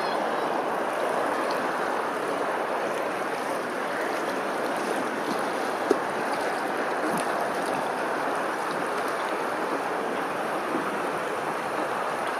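Steady rushing outdoor ambient noise, with one faint click about six seconds in.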